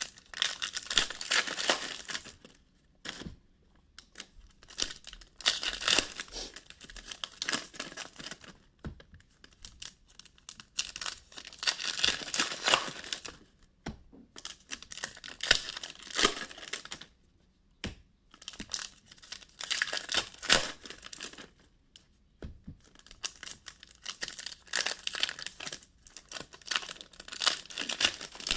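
Foil trading-card pack wrappers being torn open and crinkled by hand, in repeated bursts of a second or two with short pauses between.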